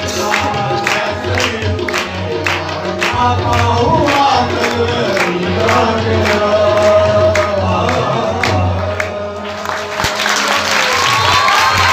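Live qawwali: a man sings with the group's voices behind him, over a harmonium and a regular beat of tabla strokes. About ten seconds in the music stops and applause breaks out.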